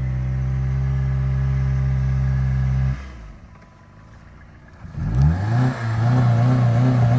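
Car engine running with a steady drone that cuts off suddenly about three seconds in. About two seconds later it revs up again and settles into a steady, slightly pulsing idle.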